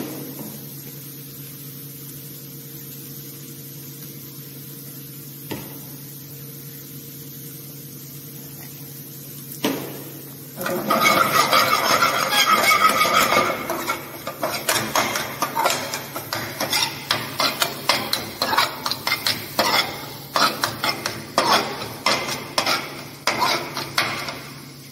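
Steel ladle scraping and knocking against an aluminium pan as chopped vegetables and spices are stirred. It starts about ten seconds in with a continuous scrape, then goes on as quick repeated strokes about twice a second. Before that only a low steady hum is heard.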